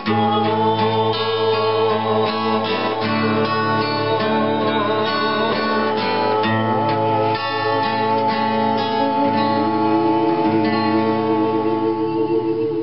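Acoustic guitar strumming chords in a steady instrumental passage.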